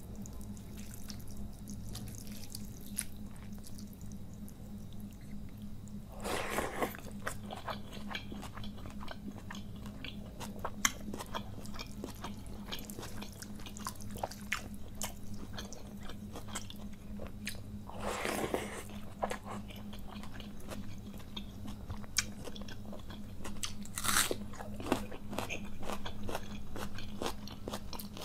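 Close-miked eating by hand: fingers squishing and mixing wet, water-soaked rice, with steady chewing and small mouth clicks. Three louder crunchy bites stand out, about six seconds in, in the middle and near the end, over a steady low hum.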